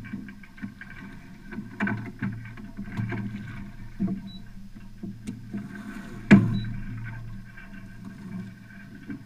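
Small sailboat under sail, a 1972 Dufour Arpege, with a steady low hum and many small knocks and creaks from the rigging as the mainsail boom swings across in a gybe. About six seconds in there is one sharp, loud knock.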